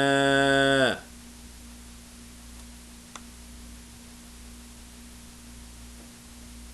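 A man's voice holds a long drawn-out "maa" for about a second. After that there is only a steady hiss with a faint low hum, and a single faint click about three seconds in.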